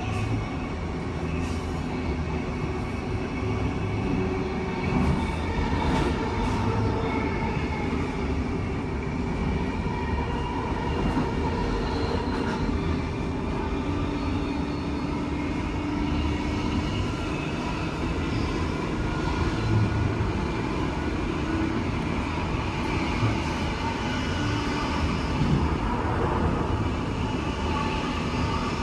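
Electric passenger train running on the line: a steady rumble of wheels and running gear with a faint steady whine, broken by a few sharp clicks.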